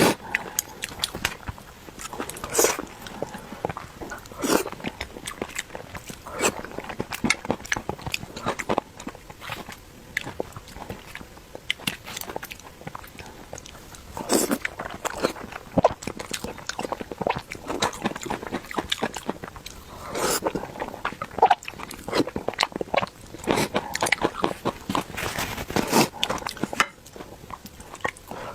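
Close-miked eating sounds: wet chewing and lip smacking, in an irregular run of short mouth clicks, as soft pig brain in chili oil is eaten.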